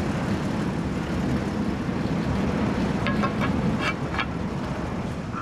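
Fire truck's aerial ladder engine running steadily to power the ladder, a dense low rumble, with a few short sharp sounds about three to four seconds in.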